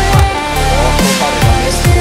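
Electronic dance music soundtrack with a heavy bass beat and repeated falling bass hits.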